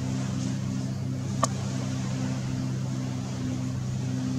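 Steady low engine hum, with a single sharp click about a second and a half in.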